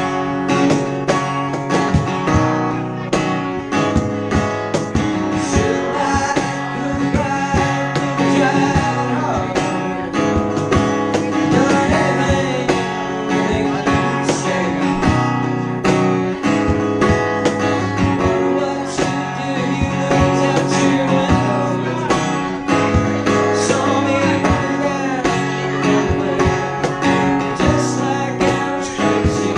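Live acoustic duo: a strummed guitar and a man singing lead, with a cajon keeping a steady beat.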